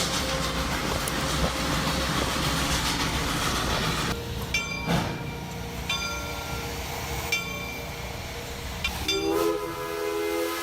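Steam locomotive running with a heavy, noisy rumble, which drops away after about four seconds to a quieter running sound with a clank and a few short high tones. Near the end a steam whistle starts, a chord of several pitches held steady.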